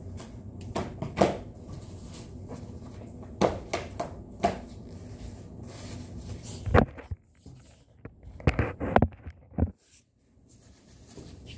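Irregular knocks and light clatter from things being handled close to the phone, the loudest knock about seven seconds in, followed by a quick cluster of bumps as the phone is picked up and turned around.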